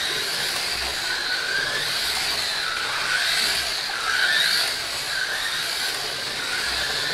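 Pioneer slot cars racing on the track: small electric motors whining, the pitch rising and falling over and over as the cars speed up on straights and slow for corners, over a steady rush of the cars running in the slots.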